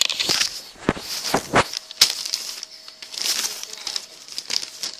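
Sheet of lined writing paper rustling and crinkling close to the microphone as a letter is unfolded and handled, on and off, with a few sharp clicks in the first two seconds.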